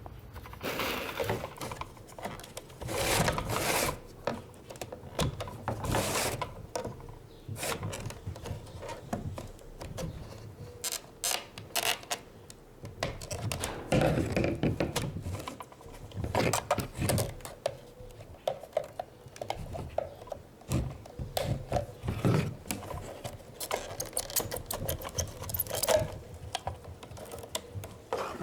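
Hand work on car parts with hand tools: irregular clicks, scrapes and rattles of metal and plastic being handled, in uneven clusters.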